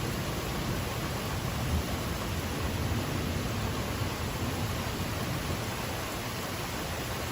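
Steady rain falling as an even hiss, with a low rumble of thunder fading away in the first couple of seconds.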